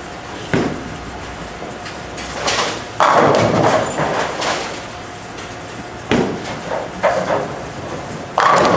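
Bowling alley din: balls rolling down the lanes and pins crashing, with a steady rumble under several sudden crashes, the loudest about three seconds in and others about six and eight and a half seconds in.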